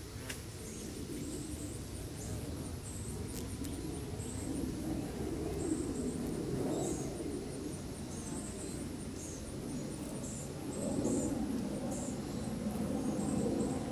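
Summer woodland ambience: insects calling in short, high, rapidly pulsed chirps again and again, over a low rumble that swells and fades.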